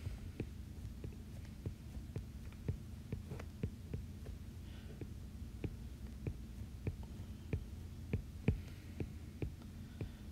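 Stylus tip tapping on a tablet's glass screen as sketch strokes are drawn: light, unevenly spaced clicks, about two a second, over a steady low hum.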